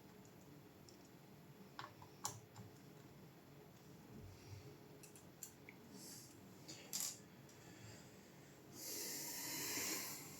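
Bench handling noises: a few sharp clicks and taps, then a hissing rustle lasting about a second and a half near the end.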